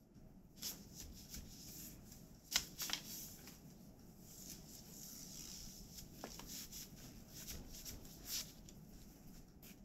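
Soft rustling and scattered wooden clacks of a floor loom strung with tree-bark-fibre thread as the weaver works it by hand, the sharpest clack a little over two and a half seconds in.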